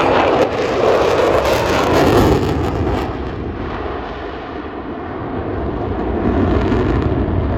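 Pratt & Whitney R-985 radial engines of a vintage twin-engine airplane running at power during a display pass: a steady, loud roar that dulls about three seconds in, dips a little, then swells again near the end.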